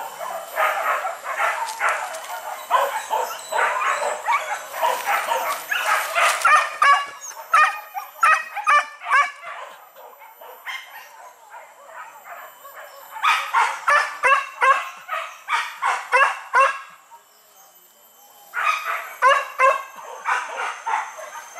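Hunting dogs barking and yelping in rapid runs of barks, which fall off twice and then start up again.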